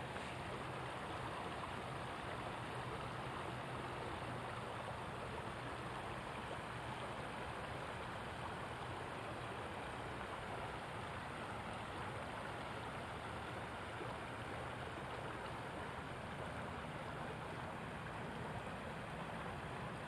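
Creek water running steadily over a shallow rocky bed, an even rushing babble.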